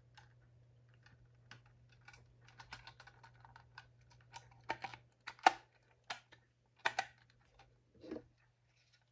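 Scattered small plastic clicks and taps as a 9-volt battery is snapped onto its connector and fitted into a Lifesaver 0905 smoke alarm's battery compartment, the louder clicks coming from about halfway through.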